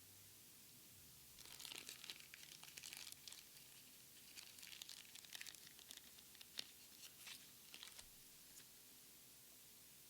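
Foil Pokémon card booster pack wrapper crinkling and tearing as it is opened, in two spells of rustling, with a sharp click partway through the second.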